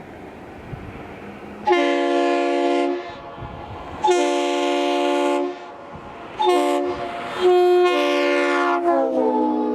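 Multi-chime locomotive air horn sounding two long blasts, a short one and a long one, the pattern of the grade-crossing signal, over the rumble of the train. Near the end the chord drops in pitch as the locomotive passes.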